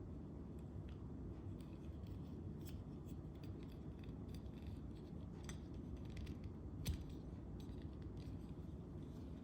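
Scattered small clicks and taps of the parts of a Nodal Ninja panoramic head and phone holder being handled, with one sharper click about seven seconds in, over a low steady rumble.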